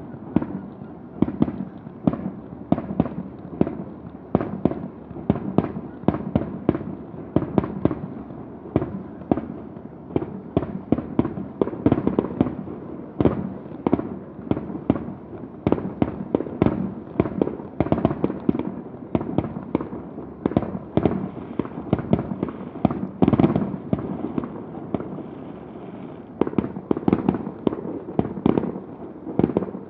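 Fireworks display: a dense, continuous barrage of bangs and crackles, several a second, with no let-up.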